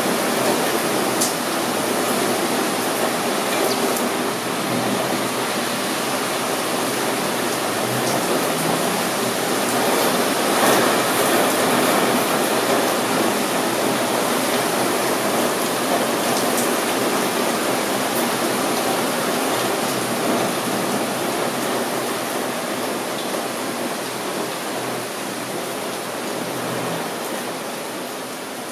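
Steady rush of rain falling, with a few faint drop ticks, growing gradually quieter near the end.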